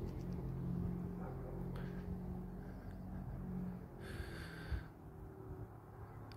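A vehicle engine droning steadily, slowly fading. A brief, sharper sound cuts in about four seconds in.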